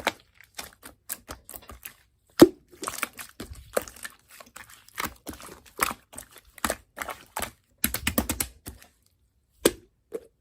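Irregular light taps and clicks, like small objects being handled, with one sharper knock about two and a half seconds in and a quick flurry of clicks near the end.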